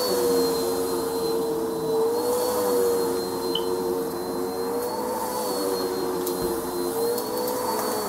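Cylinder vacuum cleaner running steadily on a shaggy carpet, its motor whine lifting slightly in pitch and settling back every two to three seconds as the wand is worked.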